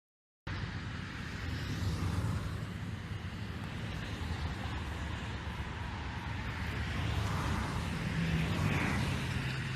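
A vehicle engine running steadily with a low hum, under a wide outdoor noise. It starts suddenly about half a second in.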